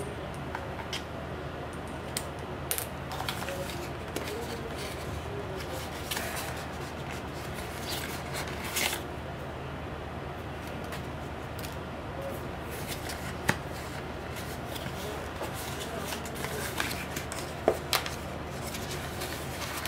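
Hands handling cardboard packaging, a paper leaflet and a plastic charging cable: scattered light clicks, taps and paper rustles, with two sharper clicks a little past the middle and near the end, over a steady low hum.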